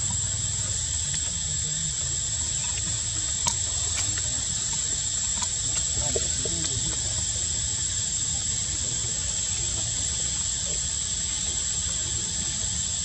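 Steady high-pitched insect drone over a constant hiss, with one sharp click about three and a half seconds in.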